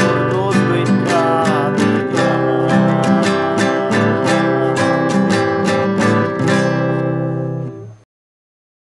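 Strummed acoustic guitar playing the closing bars of a Spanish Catholic communion hymn over sustained chords. The music stops sharply about eight seconds in.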